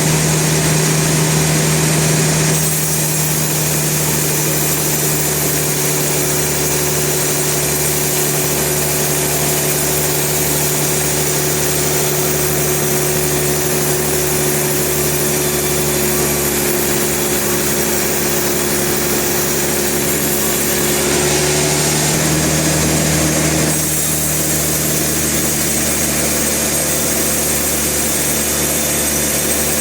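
A sawmill's engine and saw running steadily, with a brief shift in tone about two seconds in and again around twenty-one to twenty-four seconds.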